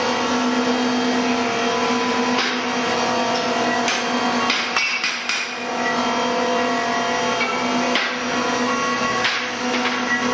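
CNC engraving and milling machine running, a steady spindle whine with cutting noise and a few sharp clicks.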